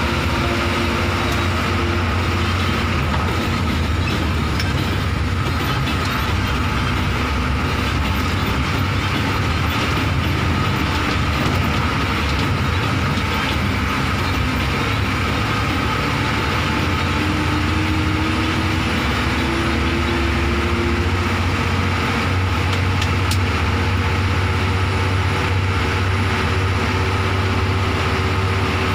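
Bus engine and road noise heard from inside the passenger cabin: a steady low rumble that runs on without a break.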